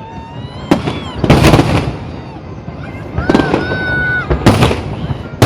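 Fireworks bursting: four loud booms a second or so apart, the loudest about a second and a half in and again near the end, with a thin high whistling tone between them.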